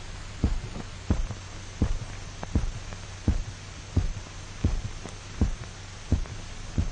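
Heartbeat sounding as regular double thumps, lub-dub, about 85 beats a minute: a normal, steady pulse. A low steady hum runs underneath.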